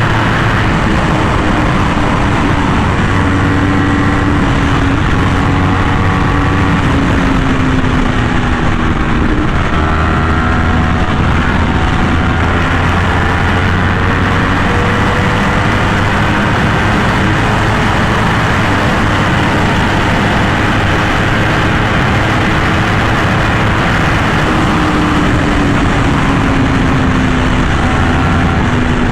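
Yamaha R1M's crossplane inline-four running hard at speed through an SC Project exhaust, under a constant rush of wind noise. The engine pitch holds steady, then slides gently down in a couple of stretches as the rider rolls off.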